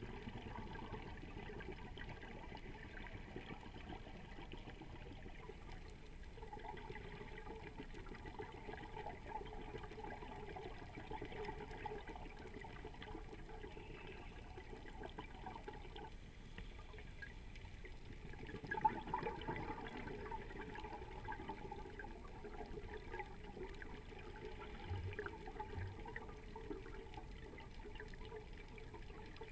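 Scuba diver's regulator exhaust bubbling in repeated stretches, one breath after another, recorded underwater through an action-camera housing. One sharp knock stands out about two-thirds of the way in.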